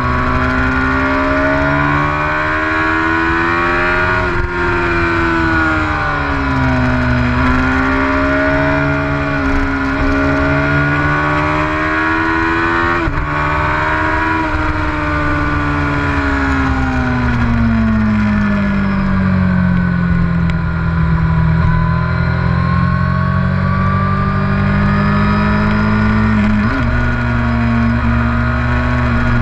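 Motorcycle engine running at road speed, its pitch rising and falling with speed through the curves, with an upshift about halfway through and a downshift near the end, over a steady rush of wind noise.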